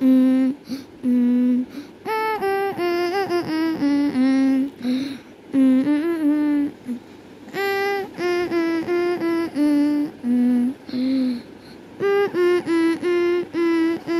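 A high voice singing a simple tune in short, steady-pitched notes, phrase after phrase with brief gaps.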